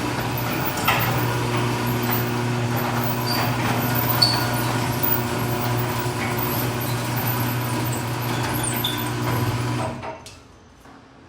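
Garage door running along its track, a steady hum with squeaks and clicks from the door, stopping about ten seconds in. The door is moving freely with its broken bottom hinge now reinforced by a metal plate.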